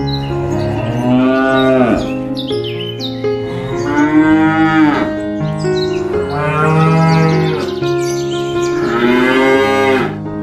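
Cow mooing four times, each call a drawn-out moo that rises and then falls in pitch, over background music with sustained notes.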